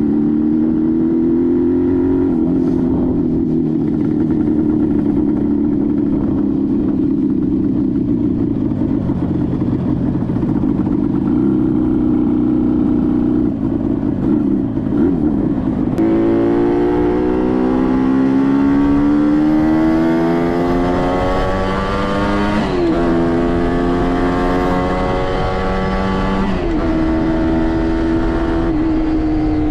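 1967 Kawasaki A1SS Samurai's two-stroke twin engine running at a steady cruise, then revving up through the gears from about halfway in, its pitch rising and dropping back at two upshifts before settling steady near the end.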